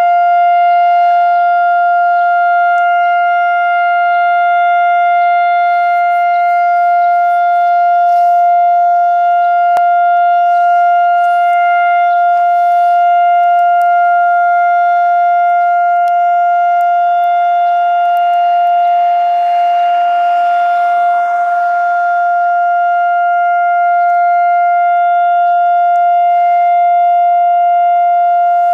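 Civil defense siren sounding one loud, steady tone that does not rise or fall: the memorial siren of Israel's Holocaust Remembrance Day.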